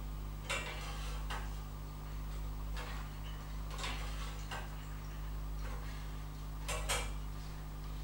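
Sharp clicks and taps, about one every second or so, from a greater spotted woodpecker landing on a wire-mesh tray feeder and pecking at peanuts; the two loudest come close together near the end. A steady low hum lies under them.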